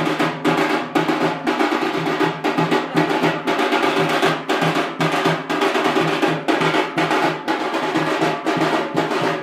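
Rhythmic drum music, fast and steady at about three beats a second, over a sustained droning tone.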